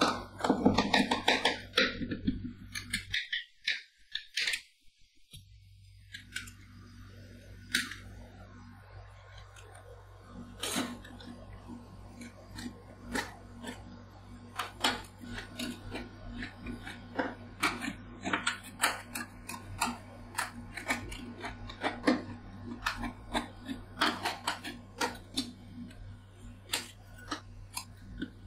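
Metal ice-cream spatulas tapping and scraping on a stainless steel cold plate as a half-frozen ice cream mix is chopped and spread thin, in repeated sharp taps, over a steady low hum.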